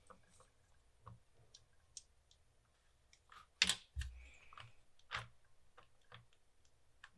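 Scattered small plastic clicks and taps of a keycap being worked onto a key plunger of an Amiga 500 keyboard. The sharpest click comes about halfway through, followed by a dull thump.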